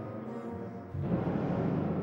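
Symphony orchestra playing: a quieter stretch of held notes, then about halfway through a louder entry weighted in the low register.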